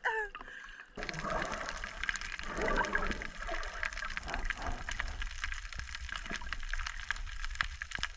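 Underwater sound heard through a submerged action camera during a freedive: a steady hiss and gurgle of water, dotted with many small clicks. It sets in about a second in, as the camera goes under the surface.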